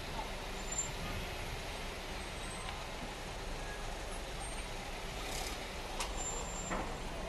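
Steady outdoor background noise of road traffic, with a single faint click about six seconds in.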